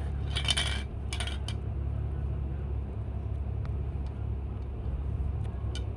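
Handling noise from a plastic aerosol-can trigger-grip holder fitted onto a spray can: two short scraping, rustling bursts in the first second and a half, then a few light clicks, over a steady low hum.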